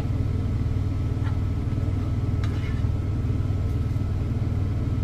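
Steady low rumble of an idling engine running throughout, with a couple of faint clicks of a serving utensil against the plate.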